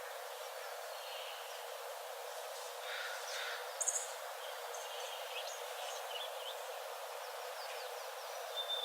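Songbirds chirping in a forest over a steady hiss of ambient noise: scattered short high calls through the middle, then a thin, steady whistled note near the end.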